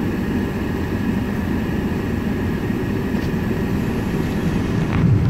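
Caterpillar hydraulic excavator's diesel engine running with a steady rumble as it works, growing louder near the end.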